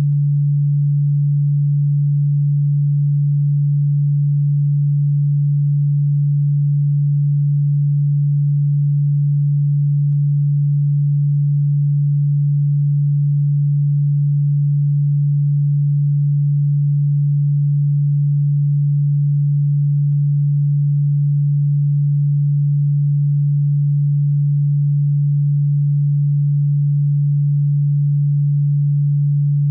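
A steady, unchanging low pure tone, an electronically generated sine wave played as a cockroach and ground-bug repellent sound.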